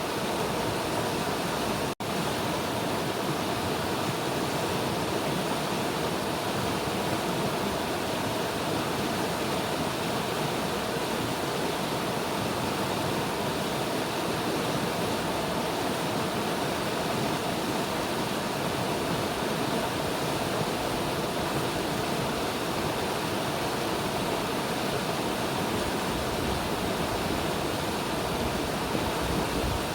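River water rushing steadily, a constant even hiss of flowing water, with a split-second dropout about two seconds in.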